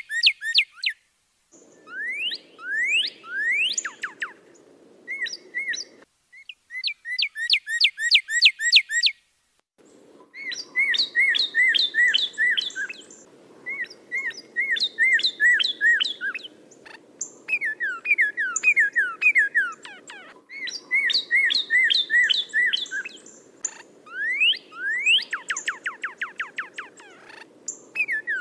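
Songbird singing rapid series of repeated, clear slurred whistles, some falling and some rising. The phrases change every few seconds and break off abruptly into brief silences, as in a spliced song recording.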